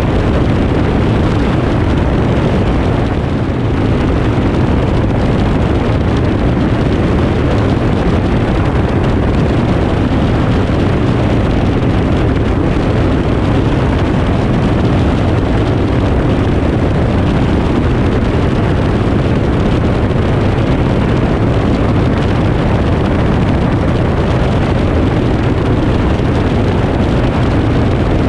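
Aeroprakt A22 LS light aircraft in cruise: steady, loud engine drone mixed with rushing wind, heard from a camera mounted outside the airframe with wind buffeting the microphone.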